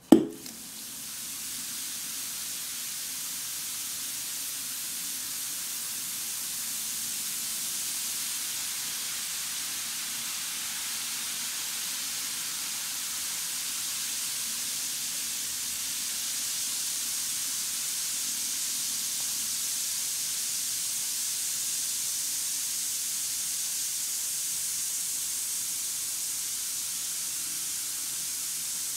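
A bath ball drops into a bowl of water with a short splash, then fizzes with a steady high hiss as it dissolves.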